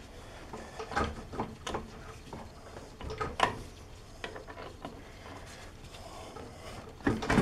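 Scattered metal clicks and scrapes as a bolt, threaded into the spacer inside an ATV's rear hub carrier, is used to work the spacer back, with a louder cluster of knocks near the end.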